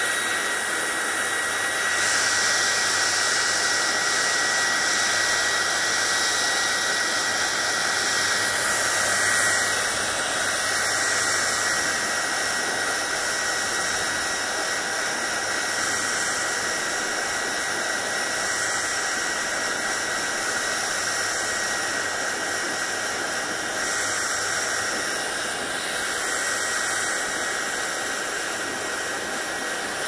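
Handheld hair dryer running steadily, blowing air through long wet hair: a loud even rush with a thin whine that fades about ten seconds in.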